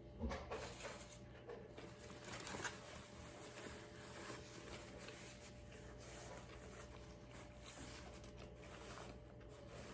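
Close rustling and crinkling of paper food wrapping being handled, with small clicks throughout and two louder taps, one just after the start and one about two and a half seconds in.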